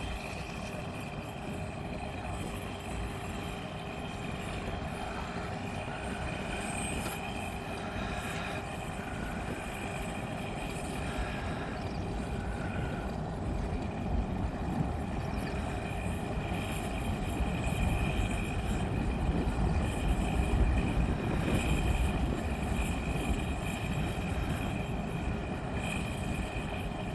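Vehicle engine running steadily, slowly getting a little louder over the second half.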